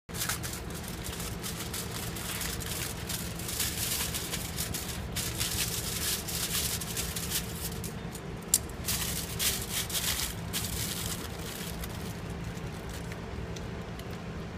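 Aluminium foil and plastic wrapping crinkling and tearing as a package is cut open and peeled apart by hand, the crinkling thinning out after about eleven seconds. A steady low hum runs underneath.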